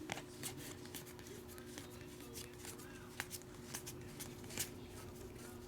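Trading cards being handled and flipped through, a run of light, irregular snaps and rustles as cards slide off a pack stack.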